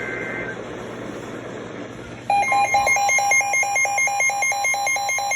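Weather radio receiver hissing with static, then about two seconds in a loud alert tone cuts in. It is a steady tone near 1 kHz over a fast, even beeping of about five beeps a second, signalling an incoming warning broadcast.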